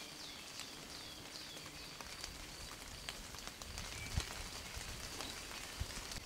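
A bird repeating a short, high call that falls in pitch, about once or twice a second, over faint outdoor background with scattered light ticks like dripping water. A soft thump about four seconds in.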